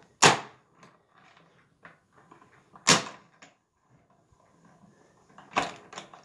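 Hand-cranked Stampin' Cut & Emboss die-cutting machine feeding a plate sandwich through its rollers: two sharp clunks about two and a half seconds apart and a cluster of knocks near the end, with faint cranking between. The clunks are the bump a straight-edged plate sandwich makes as it passes the rollers.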